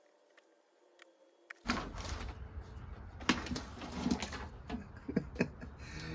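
Near silence for about the first second and a half. Then a low background rumble with a scatter of short clicks and knocks, typical of plastic parts being handled and buttons being pressed.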